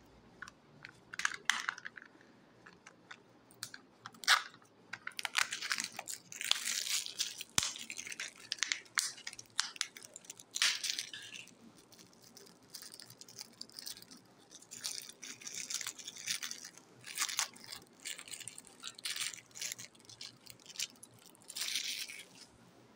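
A thin clear plastic toy wrapper being crinkled and torn open by hand, in irregular rustling bursts with a few sharp clicks.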